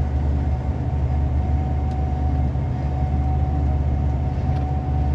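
Gleaner S98 combine running steadily while harvesting soybeans, heard from inside the cab: an even low drone with a thin, steady whine above it.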